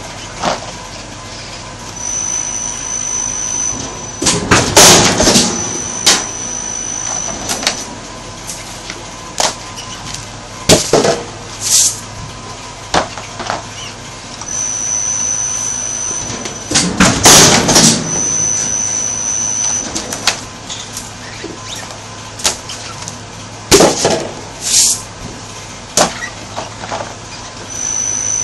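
Flatbed die-cutting press going through its cycle twice. Each time a high steady whine runs while the bed travels, a loud burst of clatter comes as it presses, and the whine returns. Between cycles there are a few sharp knocks, and the whine starts again near the end.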